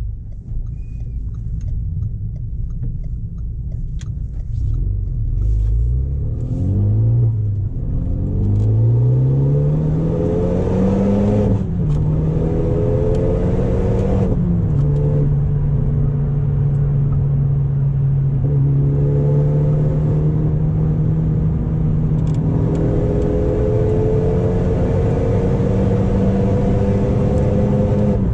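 Renault Mégane RS turbocharged four-cylinder engine through an Akrapovič exhaust, under way. It rumbles low at first, then the revs climb through the gears, dropping at each shift. It then settles to a steady drone at constant speed, creeping up again near the end.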